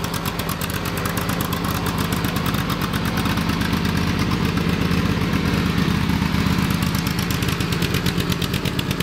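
The 20 HP Briggs & Stratton V-twin Intek engine of a John Deere L120 riding mower runs steadily under load while the mower is driven. It shows no response to wide-open throttle: the engine has no power under load.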